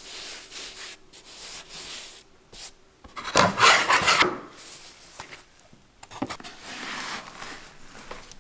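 Hands rubbing and shaping floured bread dough on a wooden board, a soft rubbing. About three seconds in, a metal bench scraper scrapes loudly across the board for about a second, then softer rustling follows.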